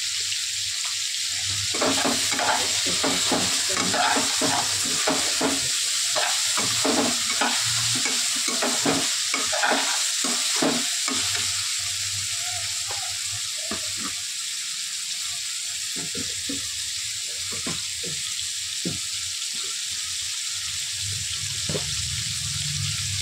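Soya chunks and vegetables sizzle in a non-stick kadhai while a perforated metal skimmer spoon stirs and scrapes through them. The stirring starts about two seconds in and is brisk for several seconds, then slows to occasional strokes over a steady frying hiss.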